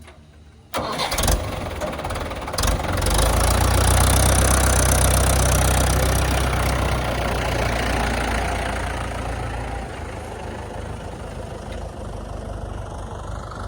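A diesel engine starts suddenly about a second in, runs up loud for several seconds, then eases down to a steady idle.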